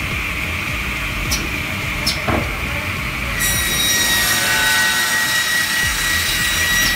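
SEMAC SM-24 crosscut saw's blade running with a steady high whine, then about halfway in it cuts into a thick hardwood block, adding a loud high-pitched screeching cut noise. Two sharp ticks come in the first half.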